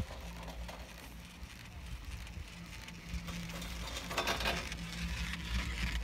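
Riding a ski chairlift: a steady low hum from the running lift under a hiss of wind on the microphone, with a louder rushing swell about four seconds in.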